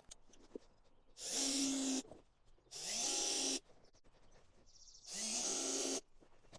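Power drill driving thin wood screws in three short bursts of just under a second each, the motor winding up at the start of each run.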